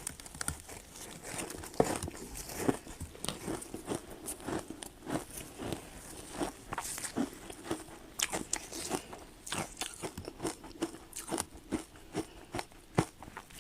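Ice being bitten and chewed: an irregular series of sharp crunches and cracks, a few a second.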